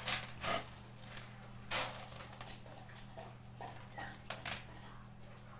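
Dried beans rattling and rustling against a metal tray as hands scoop and sift through them, in a few short, irregular bursts of clatter.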